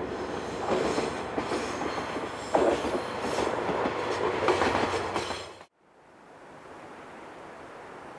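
Diesel locomotive passing close by while hauling a railcar, its engine running and the wheels clattering over the rail joints, with a brief high wheel squeal about three seconds in. The sound cuts off abruptly about five and a half seconds in, leaving a faint steady outdoor hiss.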